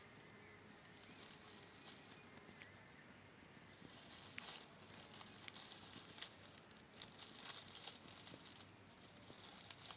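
Faint rustling with small scattered clicks, thickening from about four seconds in, as a hedgehog moves about in the vegetation.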